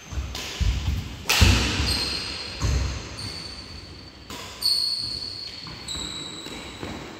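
Badminton rally on a wooden court: sharp racket hits and thudding footfalls, about six in all, the loudest about a second and a half in, each ringing on in the hall's echo. Short high squeals come between the hits.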